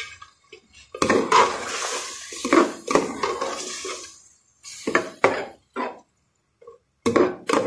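Long-handled metal spoon stirring freshly added yogurt into mutton masala in a metal pot, scraping and knocking against the pot. The stirring runs continuously from about a second in, then breaks into a few separate strokes.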